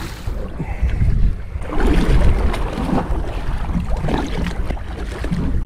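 Wind rumbling on the microphone over water lapping against a small boat's hull.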